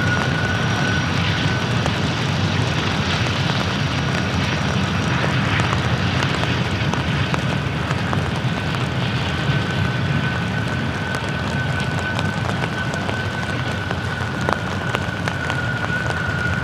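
Several diesel freight locomotives working slowly up a mountain grade: a steady low engine rumble under an even hiss, with a steady high whine through most of it.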